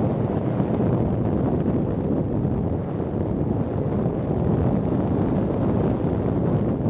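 Car driving: a steady low rumble of engine and tyres on asphalt, mixed with wind buffeting the microphone.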